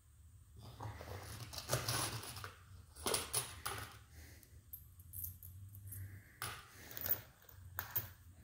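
Small steel hardware clinking and rattling as it is handled: bolts, nuts, washers and bearings knocked together and picked out of a small box, in several short bursts.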